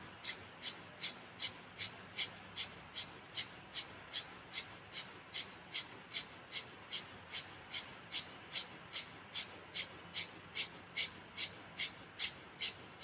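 Rapid pranayama breathing: sharp, forceful breaths through the nose at a steady fast pace of about three a second.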